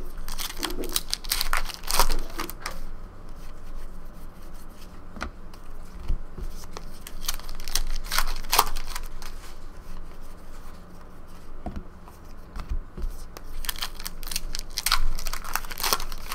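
Trading card pack wrappers being torn open and crinkled by hand, in three bursts of ripping and rustling, with quieter card handling between.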